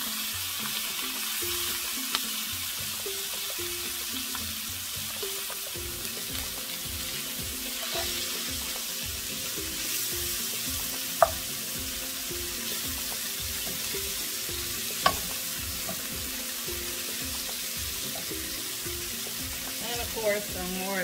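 Rinsed kale sizzling on top of sautéed peppers, onions and squash in butter and oil in a skillet, being stirred with a wooden spoon: a steady sizzle with two sharp knocks of the spoon against the pan, about eleven and fifteen seconds in.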